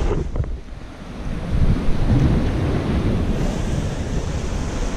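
Wind buffeting the microphone over the wash of sea surf breaking against the rocks. The wind drops away briefly about half a second in, then picks up again.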